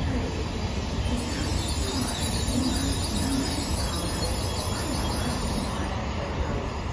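Tokaido Shinkansen bullet train moving through the station as its end car passes close by: a steady rumble of wheels on rail with a hiss of air and rail noise.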